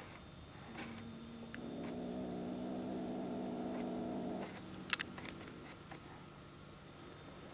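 A cat purring steadily for about three seconds, starting about a second and a half in, followed by a couple of sharp clicks.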